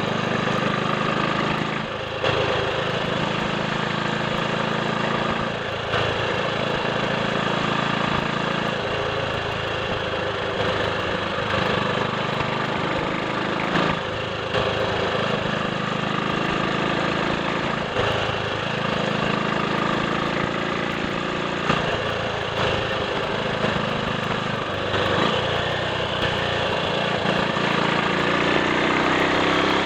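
Triumph Sports Cub's single-cylinder four-stroke engine running while the motorcycle is ridden along, with wind noise. The engine note drops briefly and changes pitch every few seconds, as with gear changes or closing and opening the throttle.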